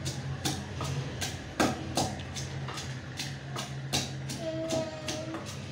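Wooden pestle pounding in a clay mortar: a steady run of dull knocks, about two to three strokes a second.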